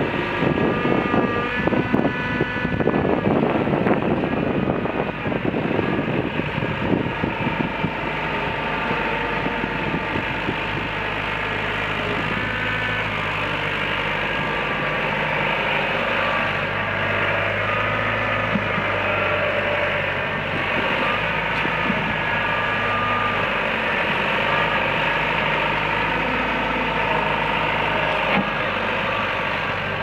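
Bobcat 853 skid steer's diesel engine running steadily as the machine drives and turns, its pitch rising and falling a little. Wind buffets the microphone during the first several seconds.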